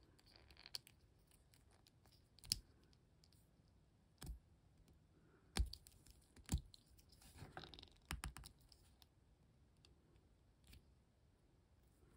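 Faint, irregular clicks of small plastic toy parts being pried and worked by hand, with a light scratchy rustle now and then.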